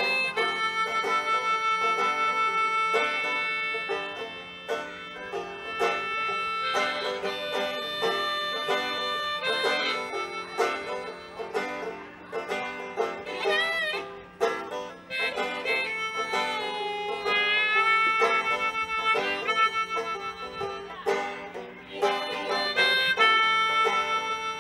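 Harmonica and banjo playing an instrumental blues passage: the harmonica holds long notes and bends some of them, over steady banjo picking.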